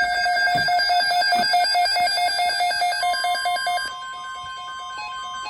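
RadioShack 12-521 weather radio sounding its alert: rapid repeated beeps. About three seconds in, a steady warning tone from the NOAA Weather Radio broadcast joins and continues as the beeping fades about a second later.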